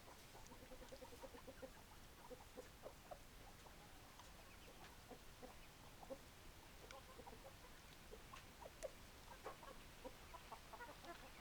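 Domestic chickens clucking softly in short, scattered notes, with a quick run of low clucks about a second in.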